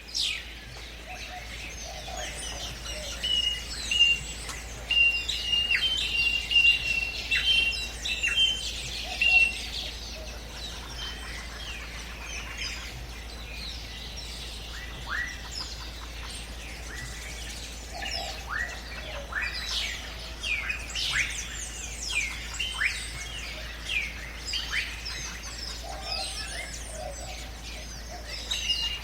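Jungle ambience: many birds calling and chirping over one another, with short, sharp, falling whistled notes and a repeated steady high note in the first ten seconds and again near the end, over a low, steady background hum.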